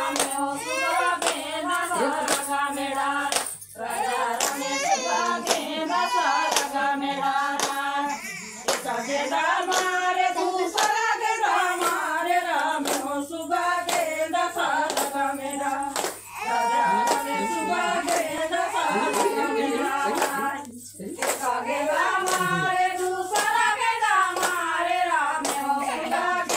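A group of women singing a Chhattisgarhi Suwa (Suga) folk song together, keeping time with steady rhythmic hand-clapping. The singing breaks off briefly between verses a few times while the song goes on.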